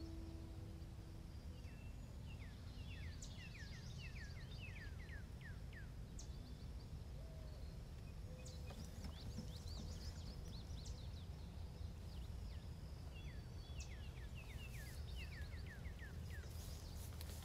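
Songbirds singing in repeated runs of quick downslurred whistled notes, over a low steady rumble. The last harp note dies away in the first second, and near the end there is rustling as the harpist gets up from her stool.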